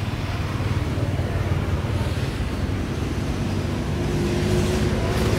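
Steady low rumble of a motor vehicle engine running, with a humming engine tone coming in about four seconds in.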